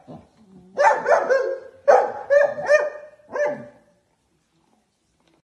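A young dog barking in a quick run of about ten short, high-pitched barks and yips, stopping about three and a half seconds in, in a squabble between two puppies over a chew stick.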